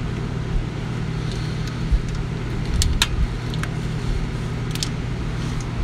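Scattered sharp metal clicks and clinks of a socket ratchet being worked on the injector hold-down clamp bolts of a Detroit Diesel 6V92, over a steady low hum.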